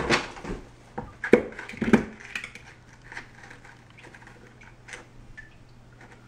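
Tile pieces and a board being handled on a wet tile saw's tray: a few sharp knocks and clicks in the first two seconds, the loudest about one and two seconds in, then fainter small taps and rubbing. A faint low steady hum runs underneath.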